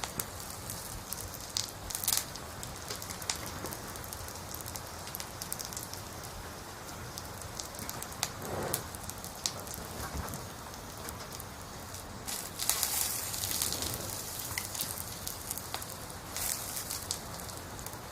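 Sparrows splashing in a shallow water bath: a steady watery patter with scattered clicks, and louder splashing flurries a few times, the longest about two-thirds of the way through.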